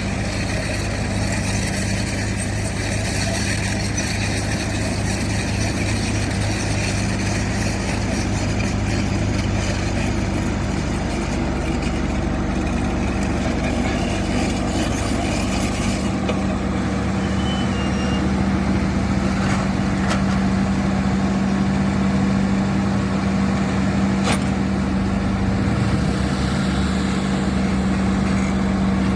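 Heavy construction machinery running steadily at a constant engine speed, a diesel excavator or vibratory roller at work on earth, with a strong, unbroken low hum.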